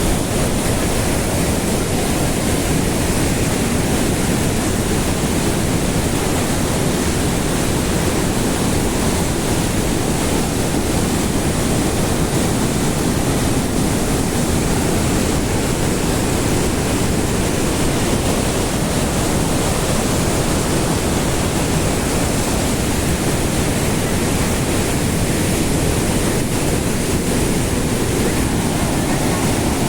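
The Rhine Falls thundering: a loud, steady roar of heavy falling water, with some wind on the microphone.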